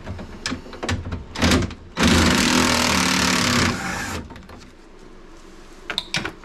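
Cordless ratchet with a 10 mm socket backing a fastener out of a car door's inner panel: a loud steady motor whir lasting about a second and a half, its pitch dropping slightly, after a few clicks and knocks as the socket is fitted.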